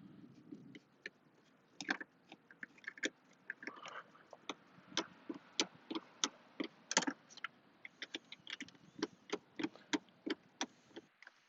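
Sharp, irregular clicking of a hand ratchet and tool working a screw in the dash, a few clicks a second with short pauses.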